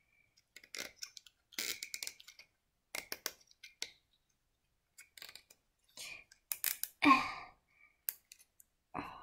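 Plastic zip ties being pulled through and handled: short, irregular clicks in small clusters every second or so.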